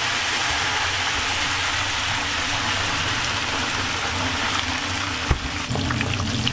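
Chicken wings deep-frying in a large pot of very hot oil: a steady, dense sizzle and crackle of bubbling oil. A single short knock about five seconds in.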